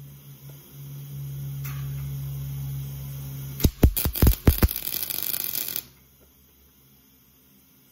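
A steady electrical hum, then about three and a half seconds in a wire-feed welder strikes its arc with several sharp pops and crackles steadily for about two seconds while laying a tack weld, cutting off suddenly.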